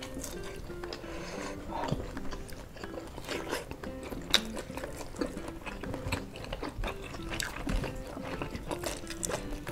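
Soft background music with a simple melody, under close-up eating sounds: chewing, lip smacks and many short sharp clicks as two people eat fried chicken and rice with their hands.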